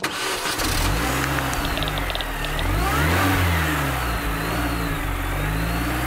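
Car engine revving, its pitch rising and falling several times.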